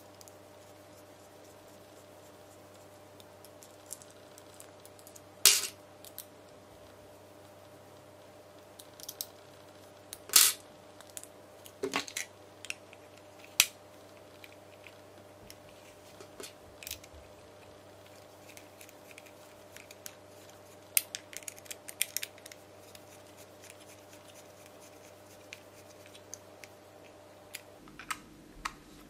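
Scattered sharp clicks and taps of hard parts being handled as an accessory rail mount is fitted to a Tokyo Marui H&K USP airsoft pistol and its bolt is turned with a small wrench. The clicks come singly and in short clusters over a faint steady hum.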